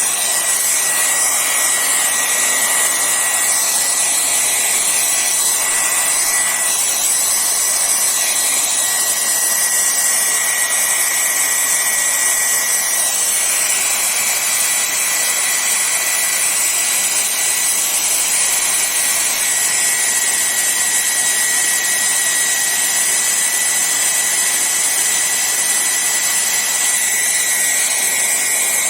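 Hair dryer blowing steadily with a high whine, drying the wet watercolour so the next layer can go on dry paper.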